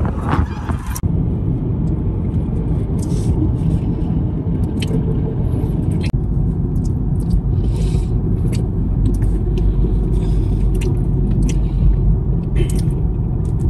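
Steady low rumble of road and engine noise inside a moving car, with a few faint ticks.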